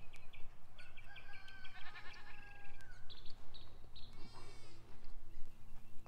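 A goat bleats once, about four seconds in, amid short high chirping calls.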